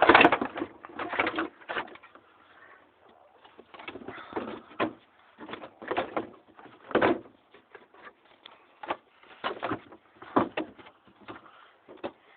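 Irregular knocks and clatter of loose car parts and bolts being handled and put back, loudest at the start, then single knocks every second or so.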